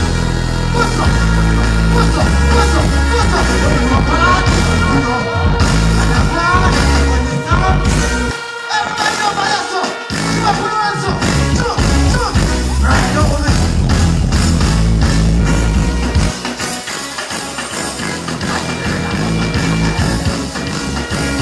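Live dancehall music played loud through a festival sound system, with a deejay chanting over heavy bass. The bass cuts out briefly about eight seconds in, comes back, and drops away again near the end.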